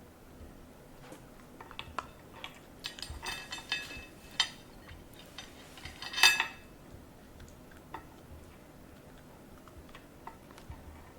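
Kitchenware clinking and clattering: a run of sharp clicks and ringing clinks, loudest about six seconds in.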